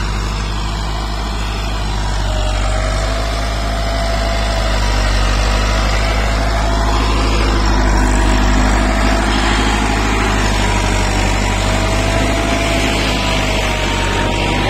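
Massey Ferguson 385 tractor's four-cylinder diesel engine running steadily under load while pulling a tine cultivator through the soil, with a thin whining tone over it. It grows a little louder about halfway through as the tractor comes close.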